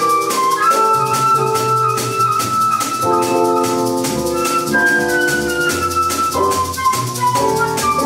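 Live jazz band playing: a flute melody with a falling run about five seconds in, over sustained keyboard chords, walking upright bass and drums keeping a steady cymbal rhythm.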